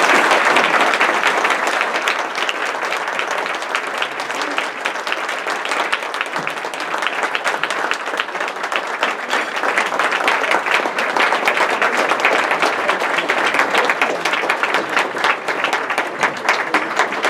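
Audience applauding at length, a dense wash of many hands clapping. It is loudest as it begins, eases a little, then builds again.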